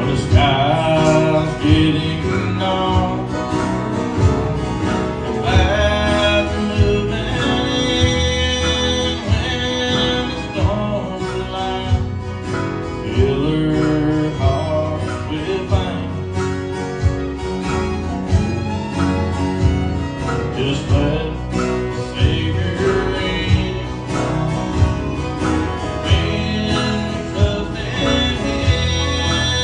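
A country song: a singer's voice over acoustic guitar and strings, with a steady beat.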